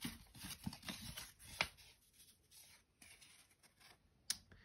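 Faint rustling and scraping of an old paper photograph being worked loose from the wooden bottom of a trunk, with a sharper tick about a second and a half in and another near the end.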